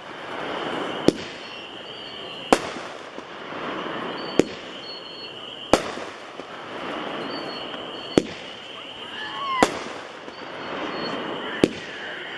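A 7-shot consumer 200-gram repeater cake firing: a sharp bang every one and a half to two and a half seconds, seven in all, with a crackling hiss between the shots.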